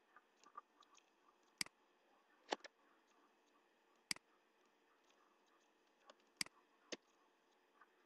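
Computer mouse and keyboard clicks: about half a dozen sharp, short clicks at uneven intervals, two of them close together, over faint steady hiss.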